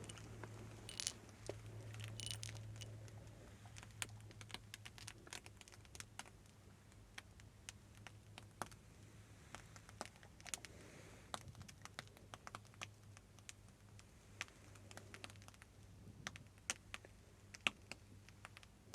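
Close-miked ASMR crackling and light tapping: irregular soft clicks and crackles, several a second, over a faint low hum.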